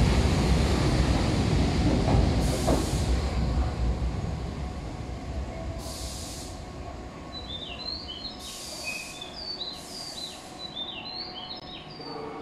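A Tobu 8000-series electric train running close by with a heavy rumble that fades away over the first few seconds. After that, small birds chirp and there are a few short hisses.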